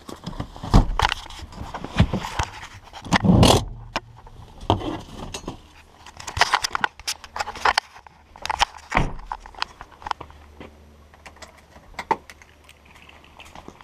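Close handling noise of getting out of a Toyota Hilux ute: a run of knocks, scrapes and rattles from the door and cab as the camera is jostled, with the loudest knock about three and a half seconds in. The knocks thin out to scattered clicks in the last few seconds.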